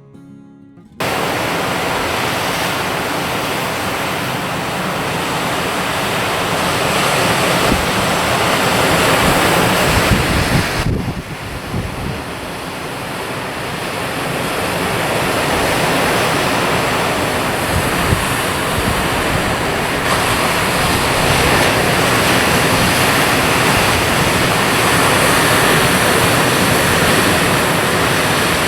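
Sea surf washing on a shoreline, mixed with wind rushing over the microphone: a loud, steady rushing noise with a gusty low rumble. It dips abruptly about eleven seconds in, then builds again.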